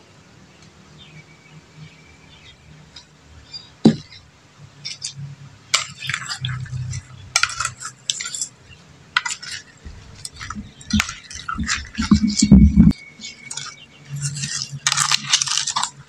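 Stainless steel bowl of catfish pieces, tomatoes, lemongrass and spices being mixed by hand and with a plastic ladle: irregular clinks, knocks and scrapes against the metal, with one sharp knock about four seconds in and a stretch of duller, heavier handling noise near the end.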